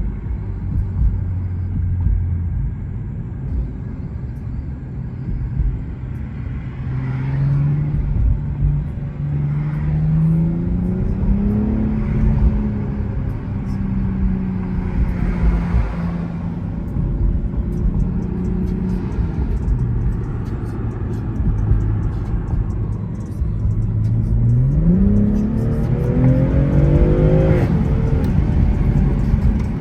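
2021 BMW M340i's turbocharged 3.0-litre inline-six on its stock exhaust, accelerating through the gears: its pitch climbs and steps down with upshifts between about six and twelve seconds in, settles to a steady cruise, then climbs quickly again near the end before dropping at another shift.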